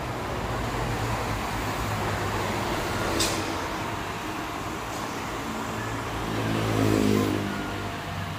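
A car engine running steadily, with a louder swell that rises and falls about seven seconds in, and a single sharp click about three seconds in.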